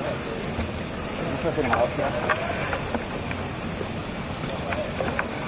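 A dense chorus of cicadas: a high, steady, even hiss that holds without a break.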